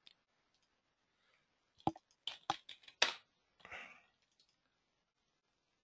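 Computer mouse clicking: a quick run of about half a dozen sharp clicks between two and three seconds in, followed by a brief soft rustle.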